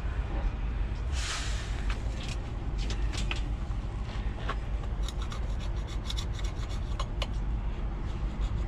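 Hands working at a piece of scrap metal: a rasping scrape about a second in, then scattered sharp metal clicks and a quick run of small ticks, over a steady low rumble.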